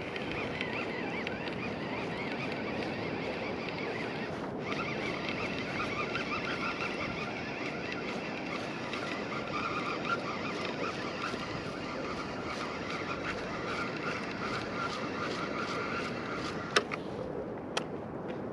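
Fishing reel whining steadily as its handle is cranked to retrieve a lure, with a short break about four and a half seconds in. The whine stops near the end, followed by two sharp clicks.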